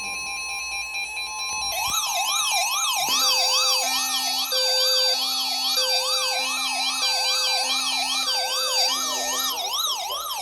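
Emergency weather alert tones for a severe thunderstorm warning. A steady two-tone attention signal gives way, about two seconds in, to a rapidly rising and falling siren-like alarm, about two sweeps a second, with a repeating on-off beeping layered over it.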